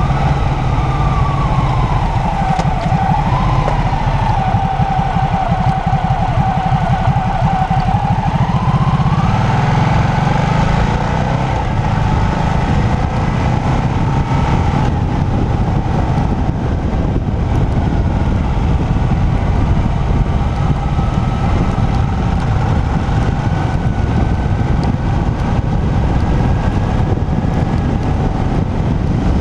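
Motorcycle engine running at road speed, heard from the bike with heavy wind rush on the microphone. The engine note falls and rises a few times in the first ten seconds as the speed changes, then holds steady.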